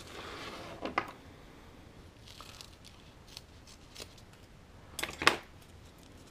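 Small scissors cutting a piece of Parafilm M laboratory film, which still has its paper backing, with light rustling as it is handled. The loudest part is a sharp snip about five seconds in.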